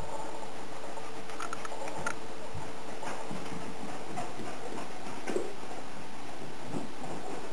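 Scottish terrier's claws pattering and clicking on a wooden floor as it runs about, a few scattered ticks over a steady hiss. A thin steady hum stops about halfway through.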